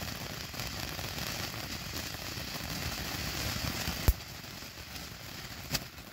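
Phantom Fireworks Savage Fountain, a consumer fountain firework, burning with a steady hiss of spraying sparks. Two sharp cracks about four and five and a half seconds in as it shoots up small shots.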